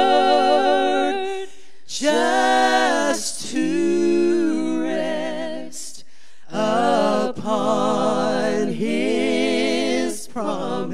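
Three women singing a hymn a cappella in harmony through microphones, long held notes with vibrato in a few phrases separated by short breath pauses.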